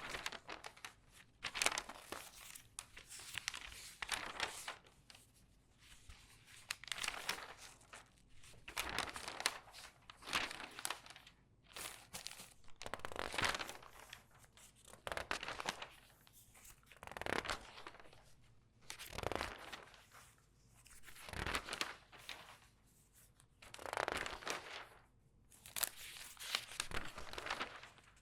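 Newspaper pages turned quickly one after another. Each turn is a crisp rustling, crinkling swish, roughly one every two seconds.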